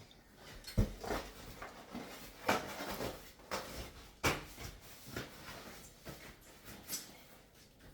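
Kitchen clatter from groceries and kitchenware being handled and put away: about eight scattered knocks of things being set down, with quieter rustling and clinking between them.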